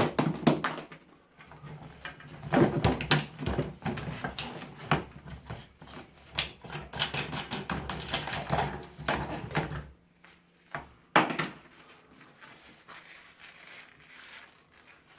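Plastic fan parts being handled and pulled apart: a run of irregular clicks, knocks and clatter, over a low steady hum that stops about ten seconds in. A single loud knock follows, then only light handling.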